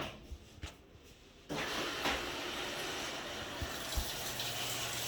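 Samsung washing machine starting its cycle: after a few faint clicks, water suddenly starts rushing into the machine about a second and a half in, a steady hiss. A low hum joins near the end.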